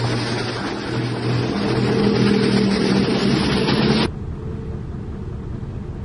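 Heavy flatbed truck's diesel engine running with road traffic as it hauls an excavator, its engine note stepping up about a second and a half in. About four seconds in the sound cuts abruptly to a quieter, steady low engine rumble.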